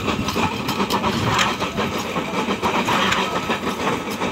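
Straw baler's engine running steadily, with irregular clicks and knocks over it.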